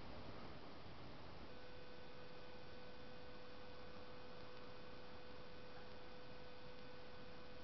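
Faint, steady hiss of a quiet night recording between the animal's screams, with a thin steady hum tone coming in about a second and a half in and holding unchanged.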